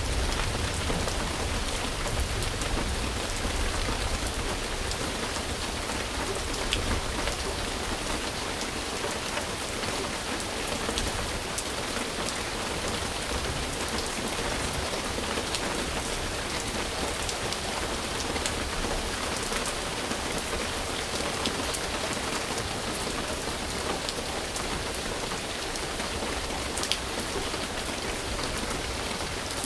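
Steady rain falling, a continuous hiss dotted with scattered louder drops. A low rumble at the start fades away over the first several seconds.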